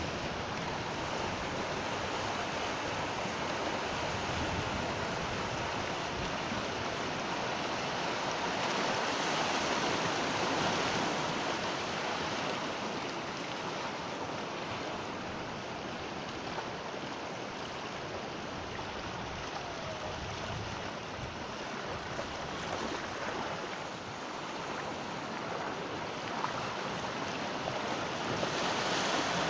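Sea waves washing onto the shore: a steady rush of surf that swells about ten seconds in, eases off through the middle and builds again near the end.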